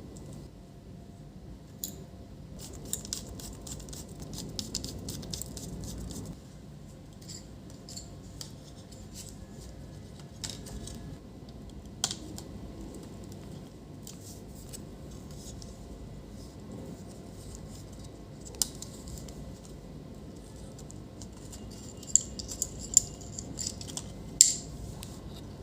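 Hands working on an opened laptop: scattered light clicks, taps and scrapes of small plastic and metal parts, with a sharper click about halfway and several quick clicks near the end.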